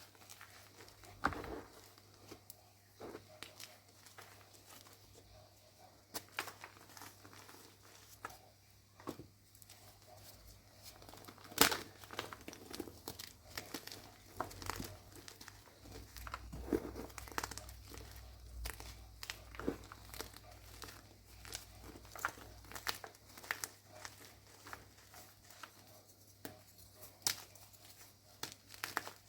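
Reformed and pasted blocks of gym chalk being crushed, giving irregular crunches and crackles, with one sharp snap about twelve seconds in.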